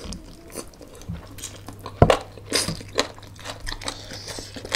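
Two people chewing and biting food with their mouths close to the microphone: wet smacks and short crunchy clicks, the sharpest about two seconds in.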